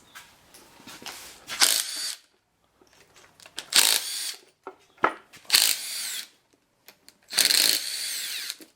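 Power drill spinning valve cover bolts out of a 6.0 L LS V8's cylinder head, in four short runs, each motor whir rising and falling in pitch.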